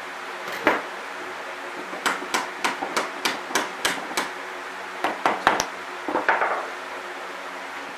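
Hammer nailing a metal joist hanger to a 2x4 floor block: an even run of about eight strikes, about three a second, then four quicker strikes a second later.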